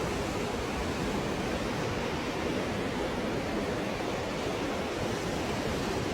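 Ocean surf washing steadily onto the beach: a continuous wash of breaking waves with no separate crashes standing out.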